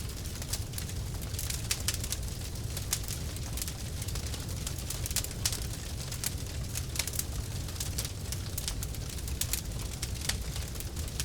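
Burning car wreck: the fire makes a steady low rumble with frequent sharp, irregular crackles and pops.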